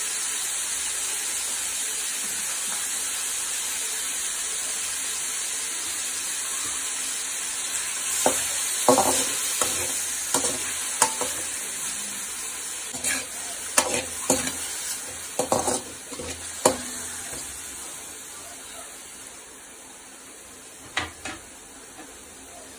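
Prawns sizzling in oil in an aluminium kadai, stirred with a metal slotted spatula that scrapes and clicks against the pan in the middle stretch and twice near the end. The sizzle dies down toward the end as the water the prawns released cooks off.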